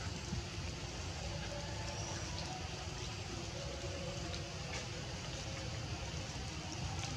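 Steady noise of water, even and unbroken, with faint thin tones now and then.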